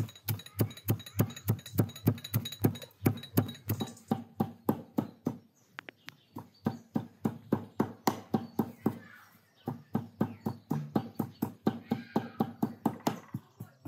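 A smooth stone used as a pestle, pounding chopped peppers and garlic in a metal bowl: rhythmic knocks, about three to four a second, with two short pauses.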